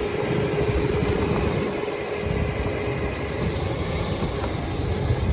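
All-terrain vehicle's engine running as it drives, with a steady tone in the engine noise that fades out about three seconds in.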